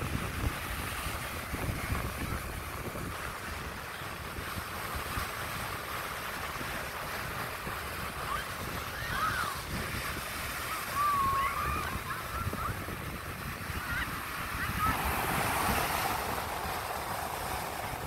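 Surf: small waves breaking and washing up the sand in a steady rush, with wind buffeting the microphone. A few short wavering calls sound between about eight and fourteen seconds in, and a wave breaks louder near the end.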